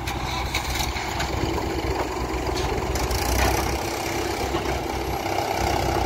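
Diesel engines of a JCB 3DX backhoe loader and a Mahindra tractor running steadily at low revs.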